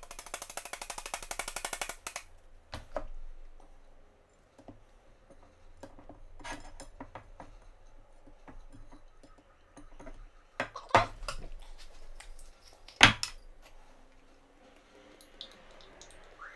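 Parmesan being grated on a metal box grater: a quick run of rasping scrapes for about two seconds. Then scattered knocks and clatters as the grater, plate and blender cup are handled and set down, the sharpest knock about thirteen seconds in.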